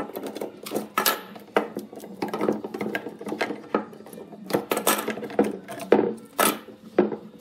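Steel F-clamps being unscrewed and pulled off a glue-up: irregular metallic clicks, clanks and knocks, about one or two a second, as the sliding arms release and the clamps are set down on a wooden workbench, over a steady low hum.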